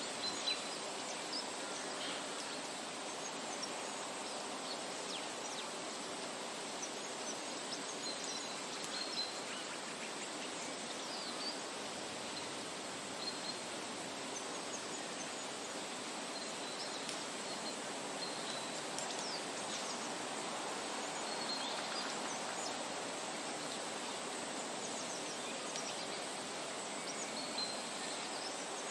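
Outdoor nature ambience: a steady background hiss with short, high bird chirps and calls scattered throughout.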